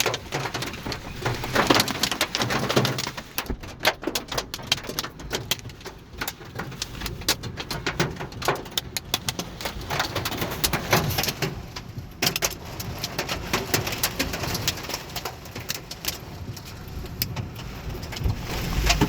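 Hailstones hitting the car's roof and windshield, heard from inside the cabin as a dense, irregular clatter of sharp hits.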